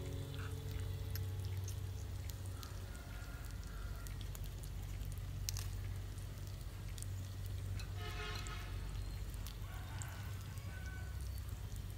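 Sliced meat sizzling on a griddle plate over a portable gas stove, a steady frying hiss with scattered crackles and pops. A short pitched sound stands out briefly about eight seconds in.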